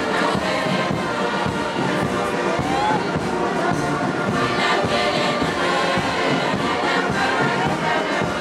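Marching band music with drums, mixed with many voices singing and the noise of a large crowd.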